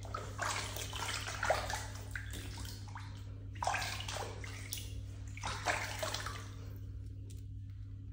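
Water sloshing and splashing in a small plastic tub as hands rub and scoop water over a Persian cat's wet coat, in irregular splashes that die down about six and a half seconds in. A steady low hum runs underneath.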